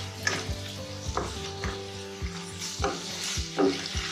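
Boiled macaroni being stirred into a sizzling pan of chicken and tomato puree. A steady frying sizzle runs under knocks and scrapes of the stirring utensil on the pan, about every half second.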